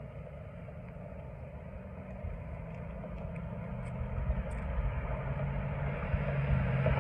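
Car approaching along the street, its sound growing steadily louder over the last few seconds.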